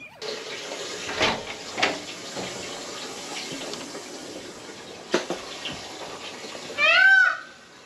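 Water running in a shower cubicle with a few sharp knocks, then a loud squeal that rises and falls as the wooden cubicle door is pulled on its hinges, near the end.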